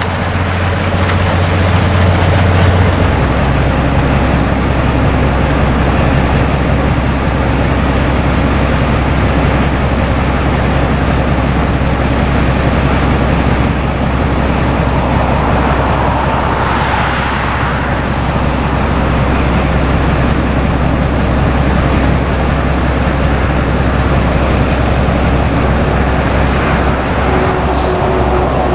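Railway rotary snowplow running loudly and steadily as it blows its way through hard-packed snow, a heavy drone with low hums. A higher hiss of spraying snow in the first three seconds stops suddenly. Around the middle a sweeping whoosh rises and falls in pitch.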